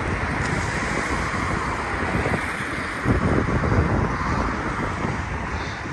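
Wind buffeting the microphone in uneven low rumbles, heaviest in a gust about three seconds in, over a steady rushing background noise.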